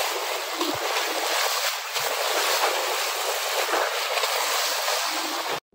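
Steady hiss of water rushing and splashing along the hull of a moving boat as it cuts through choppy sea; it cuts off suddenly near the end.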